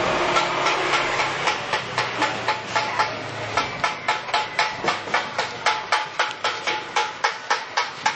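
Rapid, regular metallic knocking, about three strikes a second, each with a brief ring, over a steady hiss.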